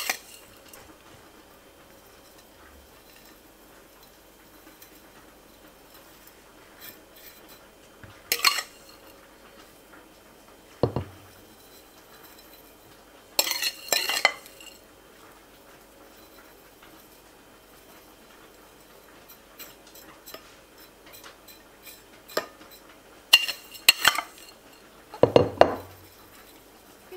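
Metal spoon scraping and clinking against a bowl and a glass baking dish as toasted shredded kadayıf pastry is scooped and scattered, in a handful of short clattering bursts with quiet stretches between.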